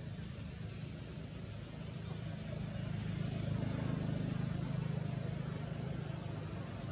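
Low, steady engine rumble of a motor vehicle, growing louder around the middle and easing off near the end.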